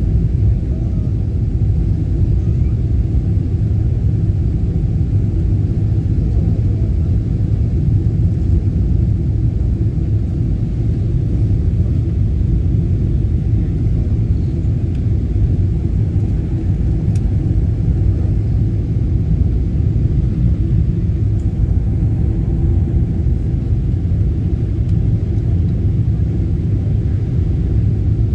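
Steady low rumble inside an airliner's passenger cabin during the descent to landing: engine and airflow noise heard through the fuselage.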